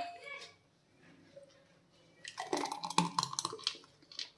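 Thick blended muskmelon shake pouring from a mixer jar into a glass, a wet, noisy pour that starts about two seconds in and lasts just under two seconds. At the start, the ring of a glass just set down on the stone counter dies away.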